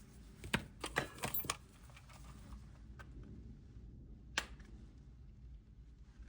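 A quick cluster of light clicks and clinks about a second in, then two single clicks, over a low steady hum: small tools and parts being handled during an end-mill change on a hobby CNC mill.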